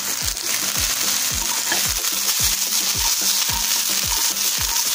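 Sweet corn and peas sizzling in hot oil in a non-stick frying pan, stirred with a wooden spatula. A low beat repeats about twice a second underneath.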